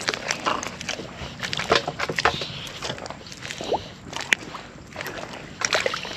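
Footsteps wading through shallow water and wet mud: irregular sloshing splashes and squelches.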